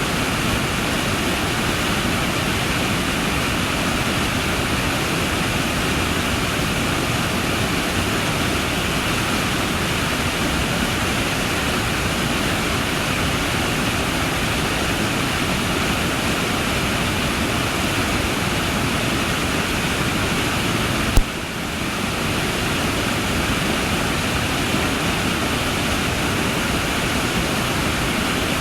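Waterfall: a steady, unbroken rush of falling water, with one short click about three-quarters of the way through.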